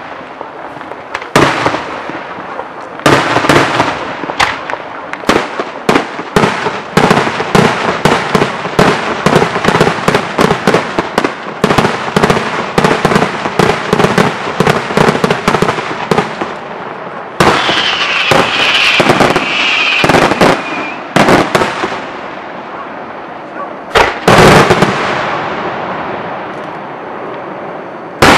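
Aerial fireworks display: a rapid barrage of shell bursts, many sharp bangs a second for about sixteen seconds. Then a high-pitched whistling for a few seconds, followed by a few heavy single bangs near the end.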